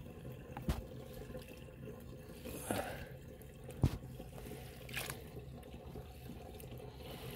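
Water sloshing and splashing in a shallow fish tub as a hand works a green plastic spawning mop through it, with a few short, sharp splashes, the loudest about four seconds in.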